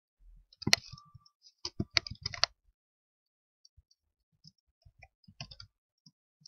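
Typing on a computer keyboard: a quick run of keystrokes about two seconds in, then lighter, scattered keystrokes later.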